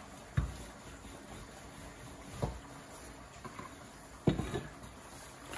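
Wooden rolling pin rolling dough thin on a floured countertop, with three soft knocks, the loudest about four seconds in.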